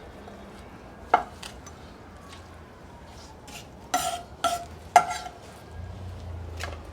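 Carving knife and utensils clinking and knocking while a smoked turkey breast is carved. There is one sharp clink about a second in and three close together around four to five seconds in, each with a short ring.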